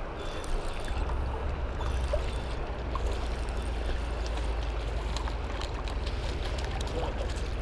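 Steady rush of spillway water with low wind rumble on the microphone, the rumble growing stronger about a second in. Faint ticking comes through as a spinning reel is cranked to bring in a hooked white bass or striper.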